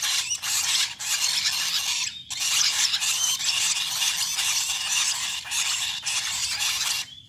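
Parrot chicks giving harsh begging calls, many at once, with a short break about two seconds in.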